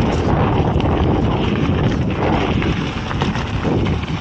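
Wind buffeting the camera microphone over the rolling rumble of a mountain bike riding a dirt trail, with scattered clicks and rattles from the bike.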